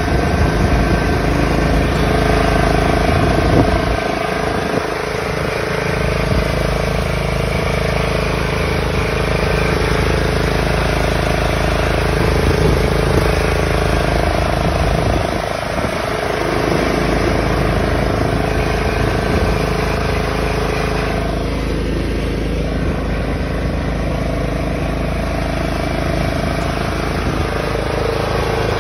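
Craftsman riding lawn mower's engine running steadily, with a low rumble and a few steady tones that waver only slightly.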